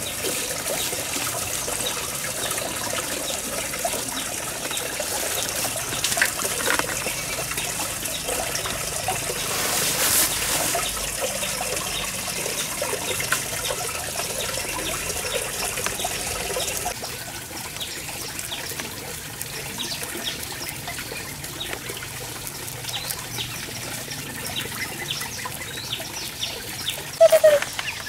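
Small crackles of rabbits rustling and chewing fresh green leaves, over a steady trickling, water-like hiss that drops in level about two-thirds of the way through. A short pitched call sounds near the end.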